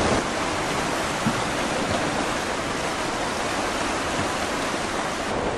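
Tsunami floodwater rushing, a steady, even noise with no separate events.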